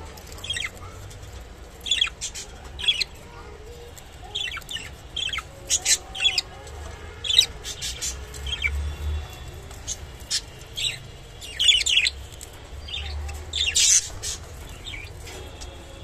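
Budgerigars chirping: many short, sharp, high calls scattered irregularly, the loudest near the end.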